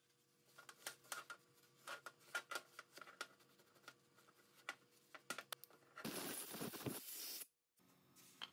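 Irregular light clicks and taps of small hard objects being handled, then about six seconds in a burst of hiss lasting about a second and a half that stops abruptly.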